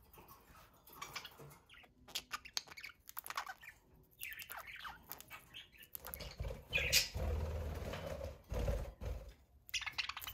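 Pet budgerigars chirping and chattering in short scattered calls and clicks, with a louder stretch of wing-flapping and rustling about six seconds in.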